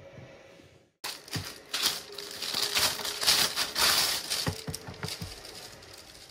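Clear plastic packaging crinkling and rustling as a boxed die-cast model is pulled out of it, with a few light knocks as the cardboard box is stood on the table a little past the middle.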